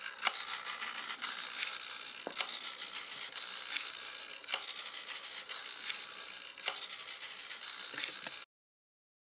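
Micro hobby servo working the ailerons through a mechanical differential linkage: a steady whirring hiss with a sharp click every second or two. It cuts off suddenly near the end.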